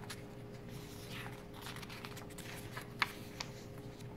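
Pages of a paper photo book being handled and turned: soft paper rustling with scattered light ticks, two sharper ones about three seconds in, over a faint steady hum.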